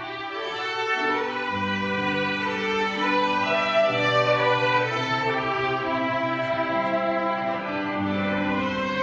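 A string ensemble playing: violins over held low notes that change every few seconds.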